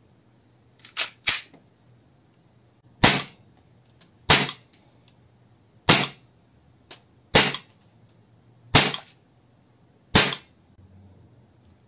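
KWC Beretta M92 (92A1) CO2 gas-blowback airsoft pistol firing single shots: six sharp cracks, one about every second and a half, each with the slide cycling. Two lighter clacks come about a second in, before the first shot.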